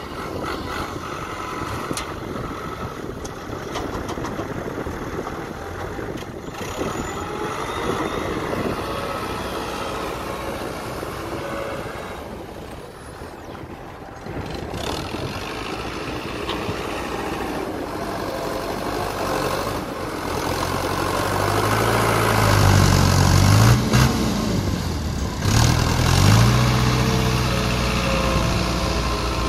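Fiat 80-66 tractor's diesel engine running as it works a front loader. Over the last third the engine revs harder, its pitch swinging up and down several times as the bucket is lifted and the tractor drives with a load.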